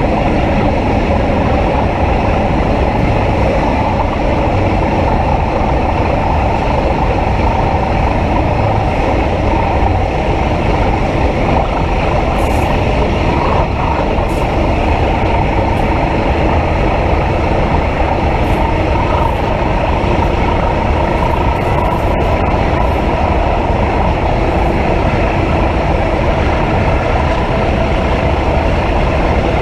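Passenger train running at speed along the line: a steady, loud rumble and rush of wheels on track.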